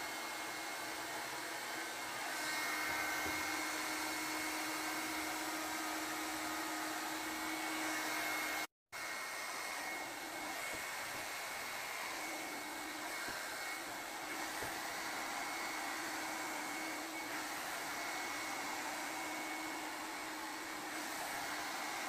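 2-in-1 Ola hot air brush (hair dryer brush) running steadily, its fan blowing with a steady hum and a faint high whine as it is worked through hair. The sound cuts out for a split second about nine seconds in.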